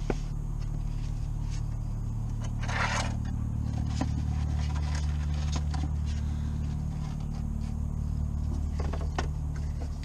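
Hands in work gloves handling parts inside a car's front wheel well: scattered scrapes and clicks, with a longer scrape about three seconds in, over a steady low hum.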